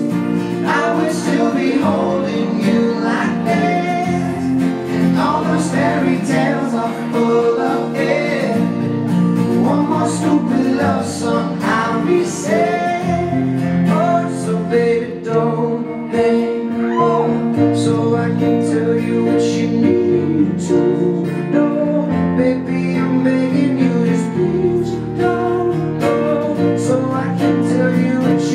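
Live acoustic band music: acoustic guitars strumming chords under a picked, melodic lead line in an instrumental stretch of the song, with some singing faintly in the mix.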